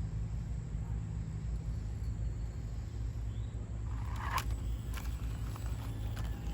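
Axial SCX24 micro RC crawler driving on rock, its motor and drivetrain giving a steady low hum. About four seconds in comes one sharp scrape or knock, then a few small ticks, like the tyres and chassis striking rock.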